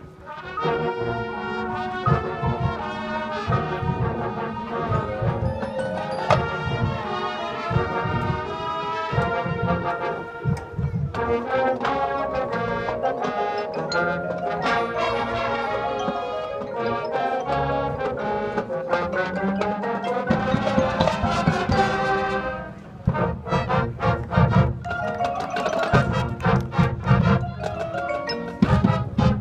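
Marching band playing a jazz halftime chart, with brass and mallet percussion together. The ensemble climbs in a rising run that breaks off about 22 seconds in, and then drum hits take over.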